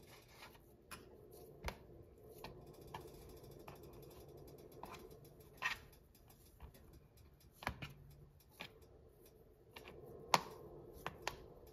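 Faint, irregular light taps and clicks as fingers pinch off lumps of chhena (fresh cheese dough) and set them down on a plastic plate, over a low steady hum.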